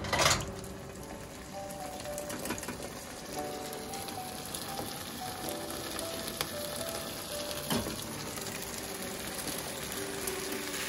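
Food frying in oil in a pan, a steady sizzle, with a loud short hiss right at the start and a few sharp clicks of utensil against pan about six and eight seconds in.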